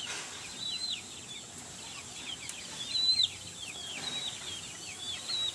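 Chicks peeping, a continuous chorus of short, high, falling peeps several times a second, a little louder about three seconds in.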